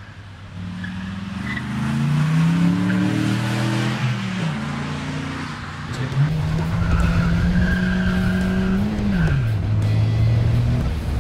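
Morgan sports car's engine revving hard as it accelerates, its pitch climbing and then dropping sharply twice, about four and a half seconds in and again about nine seconds in.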